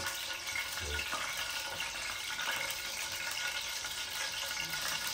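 Curry leaves and whole spices frying in hot oil in an aluminium pot, giving a steady, even sizzle.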